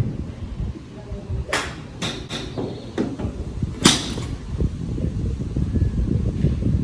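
Golf iron striking a ball: a sharp, crisp click about four seconds in, the sign of a clean ball-first strike. Three fainter sharp clicks come earlier, about a second and a half to two and a half seconds in, over a steady low rumble.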